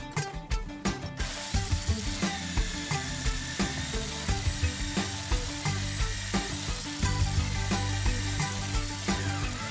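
Corded electric drill with a spade bit boring a peg hole into an oak timber. It starts about a second in and runs steadily under load, over background music with a steady beat.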